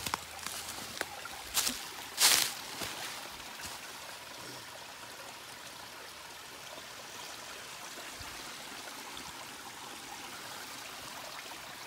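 A few footsteps crunching on dry leaves and rock in the first couple of seconds, then a small rocky creek trickling and running steadily.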